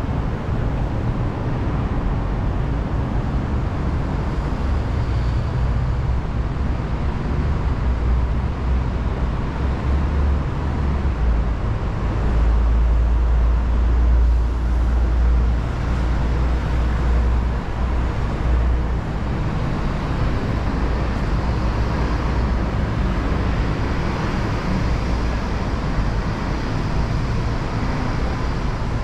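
City street traffic noise: a steady wash of passing cars and buses, with a louder low rumble for several seconds around the middle.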